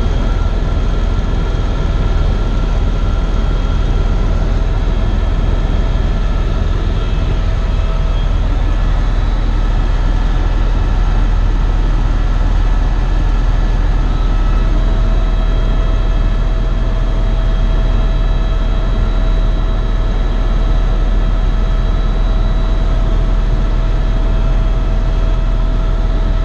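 Eurocopter EcoStar helicopter in flight: a steady, loud low rumble of the rotor and single turbine with a constant whine over it. A further whine tone joins about halfway through.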